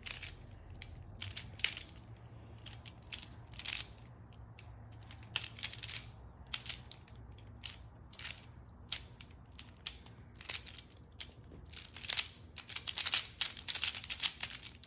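Plastic Pyraminx puzzle being turned rapidly by hand during a speed-solve: a quick, irregular run of clicks and clacks, busier and louder toward the end.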